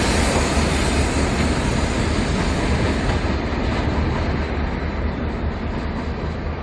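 Two coupled diesel locomotives led by X class X54 running light engine, a steady low engine drone over rail noise. The sound grows duller and a little quieter from about halfway through as the locomotives move away.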